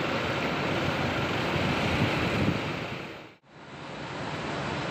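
Double-decker coach's diesel engine pulling away, heard through heavy wind noise on the microphone. The sound drops out briefly a little over three seconds in, then a steady wind-like rush follows.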